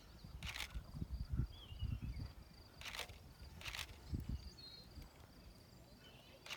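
Outdoor ambience: insects chirring steadily in a high, finely pulsing tone, with a few short bird chirps. Wind rumbles on the microphone in the first half, and a few sharp clicks cut through.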